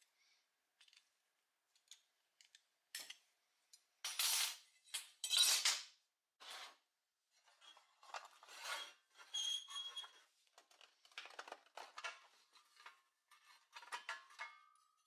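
Pressed-steel Tonka toy truck parts being worked apart by hand: faint clicks of pliers on a steel wire at first, then a run of scraping, clinking and rubbing of metal and plastic parts as the cab roof and window piece are pried off. The loudest scrapes come about four to six seconds in, and a short squeak comes near the end.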